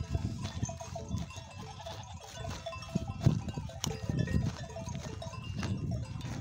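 Bells on a grazing flock of sheep and goats ringing in an irregular jangle, over a low rumble of wind on the microphone.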